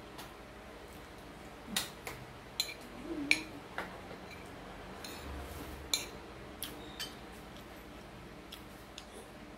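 Metal spoon clinking and scraping against a plate while scooping up fried rice: a string of sharp, separate clicks, the loudest about three seconds in, thinning out after about seven seconds.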